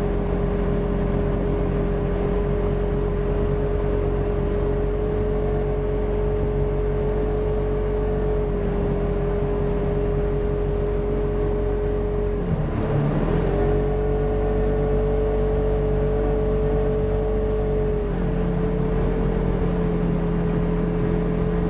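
Polaris RZR 1000 side-by-side engine running at a steady pace with a constant drone. About two-thirds of the way through it briefly drops and picks back up, as if the throttle is lifted and reapplied.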